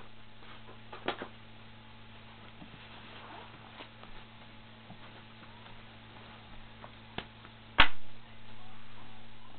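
Small clicks and knocks of hands handling a roll of black electrical tape and tools on a wooden desk, with one sharp loud knock near the end, over a steady low hum.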